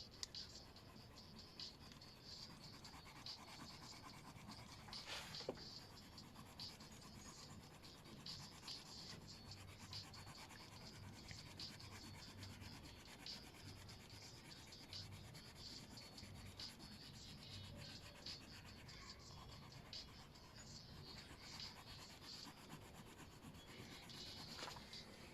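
Faint rubbing strokes of a drawing tool on paper during colouring, many short, quick strokes one after another.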